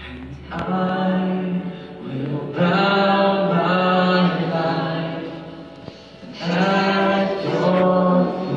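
Live worship band music: voices singing long held notes over guitars and piano, in three phrases with short breaks between them.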